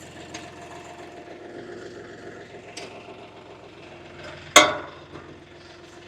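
UHI 254 compact tractor's diesel engine idling steadily, with one loud metallic clank about four and a half seconds in as the quick-release hitch hooks take the implement's pins.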